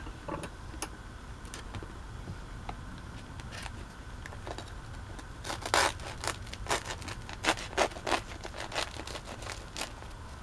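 A knife cutting through the crisp crust of a white bread roll, a quick run of sharp crackles and crunches from about halfway to near the end, after a few faint clicks as the knife is picked up.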